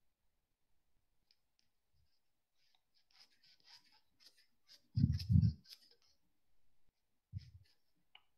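Handling noise from an earphone microphone being adjusted at the ear: a run of small clicks and rubs, with two heavy thumps about five seconds in and another near the end.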